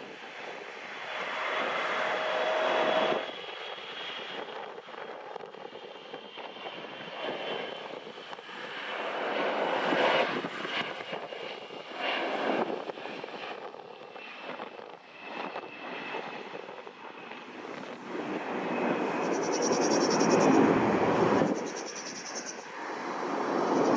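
Jet airliner engines running, a high whine of steady tones over a rushing noise that swells and fades several times, with wind gusting across the microphone.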